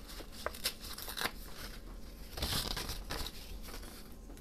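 Stiff wallpaper being handled at a craft table: paper crinkling and rustling, with a few small clicks and a short rustle about halfway through.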